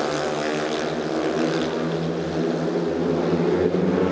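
Several 500 cc single-cylinder speedway motorcycles racing round the track, their engines running hard in a steady, continuous note.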